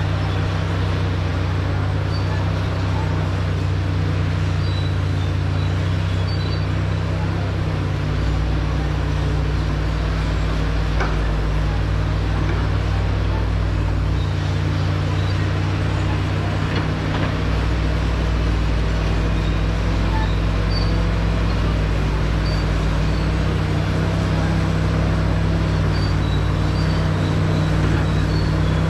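Komatsu D65 bulldozer's diesel engine running steadily under load, its low note shifting every few seconds as the load changes.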